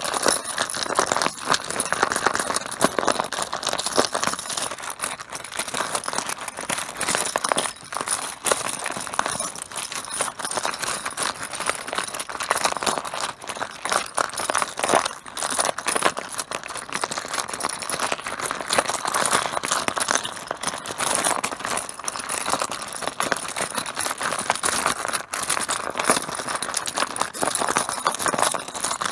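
Mahjong tiles clacking against one another in a dense, continuous clatter of small hard clicks.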